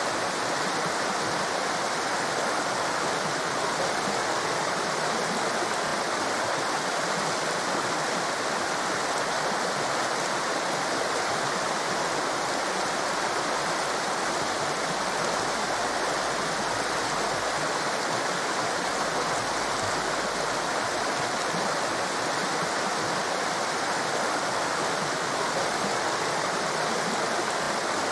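Steady rushing of a torrent of water, an even, unbroken hiss.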